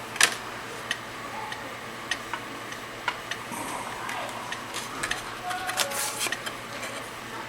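Scattered small sharp clicks with brief rustling of paper and plastic: vending-machine sticker packets being handled and opened by hand, with a short burst of crinkling near the end.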